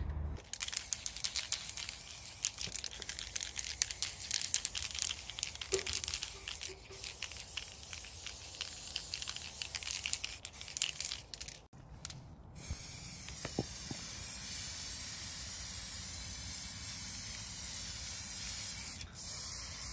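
Aerosol spray-paint can spraying: a steady high hiss through the second half. Before it comes a stretch of irregular crackling and clicking.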